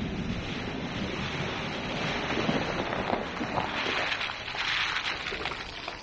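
Jeep Wrangler driving through a shallow water crossing, the water washing and splashing around its tyres, then its engine and tyres on sand growing louder as it comes up the trail toward the microphone. Wind rumbles on the microphone throughout.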